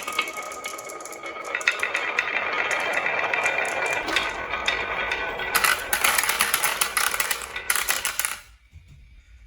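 Marbles rolling and clattering down a HABA wooden marble run: a dense stream of clicks and rattles with louder bursts of clatter, stopping abruptly near the end.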